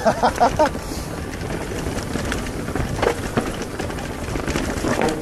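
Mountain bike ridden over a stony trail: a steady wind rumble on the camera microphone as the tyres roll over rocks, with a few sharp knocks from the bike about three seconds in and near the end.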